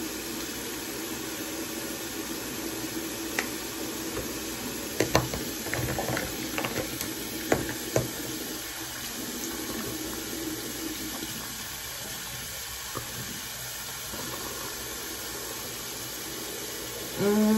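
Water running steadily from a bathroom tap into the sink, with a few sharp clicks and knocks about five to eight seconds in as toothpaste tubes and a toothbrush are handled.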